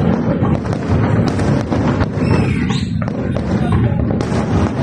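Fireworks and firecrackers going off in quick succession: a dense run of bangs over a steady low rumble, with a brief whistling glide about halfway through.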